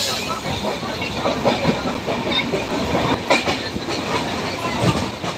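A passenger train running at speed, heard from inside a coach at the window: a steady rumble of wheels on the rails with irregular clicks and clacks over the track.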